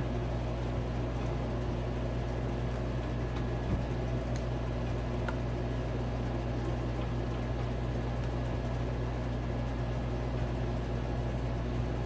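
Steady mechanical hum of the room, unchanging throughout, with a few faint clicks a few seconds in.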